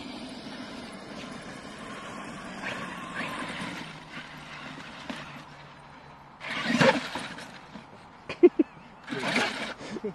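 Traxxas X-Maxx electric RC monster truck in sand: a steady low running noise, then two short loud bursts of throttle about three seconds apart, with a few short sharp sounds between them, as it tries to drive itself free of the sand.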